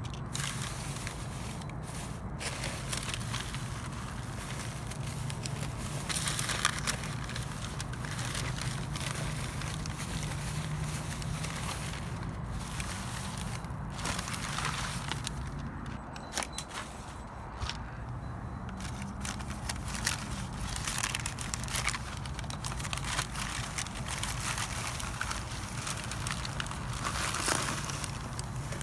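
Trash being rummaged through in a dumpster: a continuous run of irregular crackles, rustles and knocks as items are shifted and handled.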